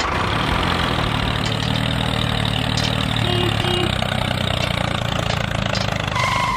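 Tractor engine idling steadily, then cutting off abruptly at the end.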